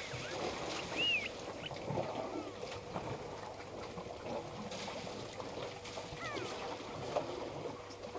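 Elephant herd drinking at a waterhole: a continuous uneven sloshing and splashing of water with small knocks and shuffles, and a few short high bird chirps, one about a second in and a couple around six seconds in.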